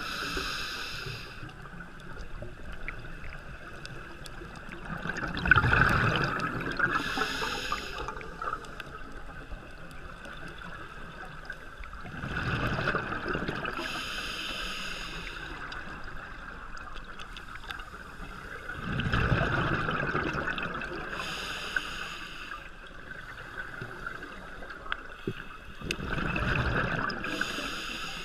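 Scuba diver's regulator breathing underwater: hissing inhalations alternate with gurgling rushes of exhaled bubbles, about one breath every six to seven seconds, four exhalations in all. A steady high hum sits underneath.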